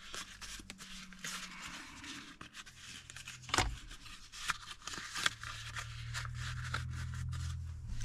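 Leather gear-shift boot and its plastic trim frame being handled and fitted over the shifter: rustling with many small clicks and taps, and a sharper click about three and a half seconds in, over a steady low hum.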